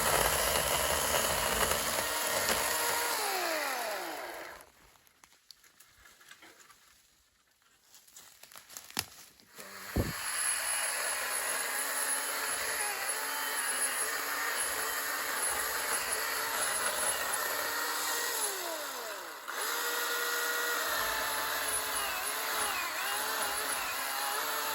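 Ryobi 18V One+ battery chainsaw with a 12-inch bar running and cutting wood. Its motor spins down with a falling whine about three seconds in, then goes quiet for several seconds. After a click about ten seconds in it starts again and runs steadily, spinning down once more near the twenty-second mark before running on.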